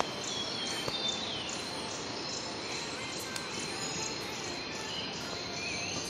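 Early-morning forest ambience: a steady high insect trill, with birds chirping now and then over a soft, even background hiss.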